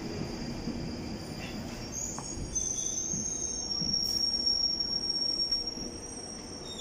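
London Underground Northern Line train (1995 Tube Stock) standing at the platform with its equipment running: a steady low rumble, joined about two seconds in by a steady high-pitched whine.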